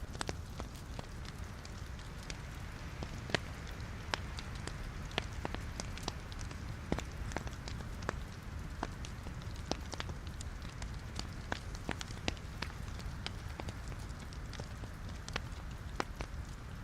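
Wood logs burning in a fireplace: a steady low rumble of flames with frequent irregular sharp crackles and pops, several a second.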